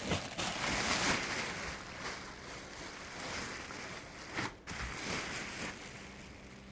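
Rustling as a dress is handled, a continuous papery swish that eases off toward the end, with a brief break about four and a half seconds in.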